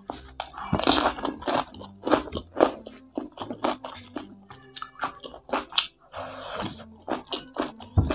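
Close-miked mouth sounds of eating ayam kremes: crunching and chewing crispy fried chicken and its crunchy fried-batter flakes, with quick crackles and wet mouth clicks. Two longer hissing sounds come about a second in and again after six seconds.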